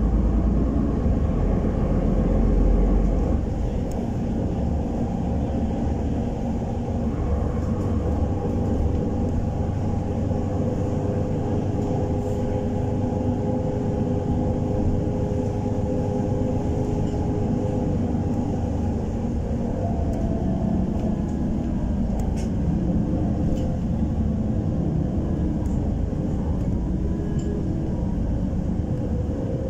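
Solaris Urbino 12 city bus on the move, heard from inside the passenger cabin: a steady engine and road rumble. A humming tone holds for several seconds in the middle.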